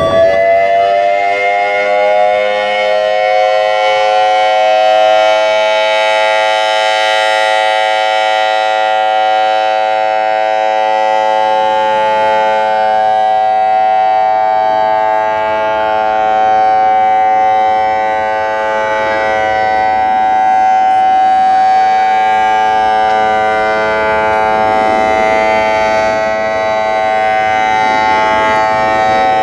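ACA Alertronic AL-6000R electronic siren sounding its steady dual-tone Alert signal in a test. The two tones rise in pitch over the first couple of seconds, then hold steady with only slight swells in loudness.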